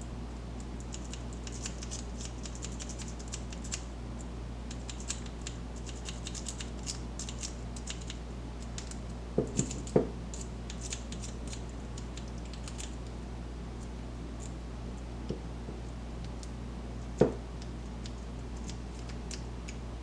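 Steel lock picks scraping and ticking inside a pin-tumbler lock as it is picked: many small, quick metallic clicks, with a few louder knocks about halfway through and again near the end.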